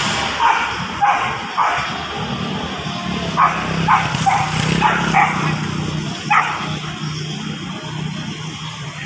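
A dog barking in short, sharp yaps, about eight of them in small bunches over the first six seconds or so, over a steady low hum of traffic.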